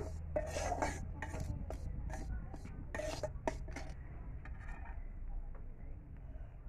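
A metal spatula scraping and stirring semolina around a metal kadhai as it roasts in ghee: a series of short scrapes against the pan, fainter and sparser in the last couple of seconds.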